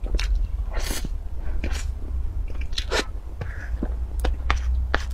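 Close-miked mouth sounds of eating soft cream cake: a run of wet smacks and clicks while chewing.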